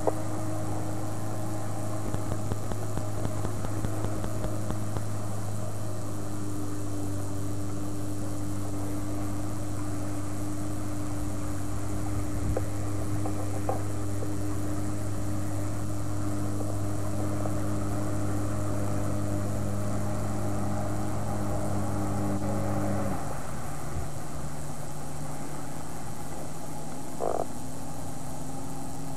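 Pontoon dive boat's motor running with a steady low hum. About 23 seconds in its note changes: the deepest tone drops out, leaving a thinner hum. A brief rising squeak comes near the end.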